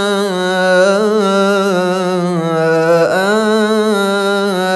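A man's solo unaccompanied Quran recitation in melodic tajwid style: one long, drawn-out vowel held and ornamented with a wavering melody, with a brief dip in pitch about three seconds in.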